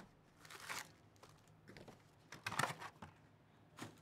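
Foil-wrapped 2024 Topps Chrome Update baseball card packs and their cardboard hobby box being handled: four soft rustles and scrapes as the packs are lifted out of the opened box, the loudest about two and a half seconds in.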